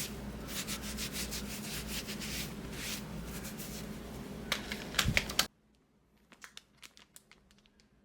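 Close handling noise: steady rubbing and crinkling with many small clicks, which cuts off suddenly about five and a half seconds in, followed by a few faint taps.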